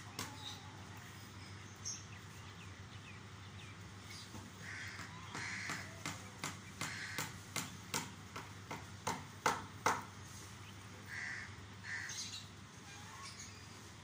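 A backyard flock of chickens, ducks and pigeons: short caw-like calls, several through the middle and near the end, among sharp clicks and taps.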